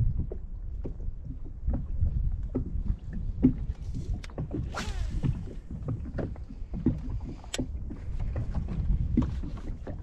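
Water lapping and slapping against a small fishing boat's hull, with wind rumble on the microphone and scattered light knocks. About five seconds in comes a brief whooshing swish as a spinning rod is cast.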